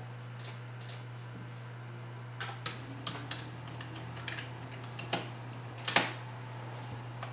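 Typing on a computer keyboard: irregular, sparse keystrokes in small clusters, with one louder clack about six seconds in, over a steady low hum.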